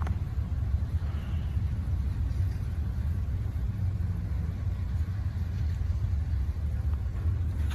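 Double-stack intermodal train cars rolling past with a steady low rumble of wheels on rail.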